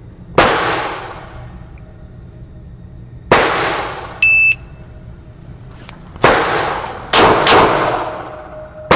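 Handgun shots ringing and echoing in an indoor range: single shots about half a second and three seconds in, a shot timer's beep about four seconds in, then more shots after it, two of them in quick succession near the seven-second mark, from a Ruger LCR revolver firing .38 Special and from neighbouring lanes.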